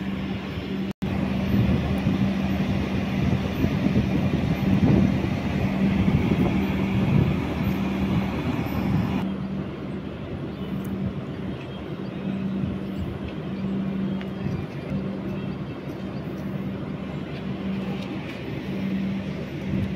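Steady low hum and background noise of an Indian Railways passenger train at the station platform, with no horn or clear wheel clatter.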